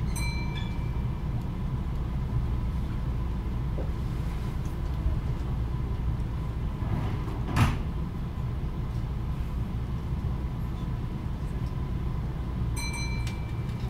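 Kintetsu 80000-series 'Hinotori' electric train standing at a platform with a steady low equipment hum; the doors close with a single sharp thump about halfway through. Brief high beeps sound at the start and near the end.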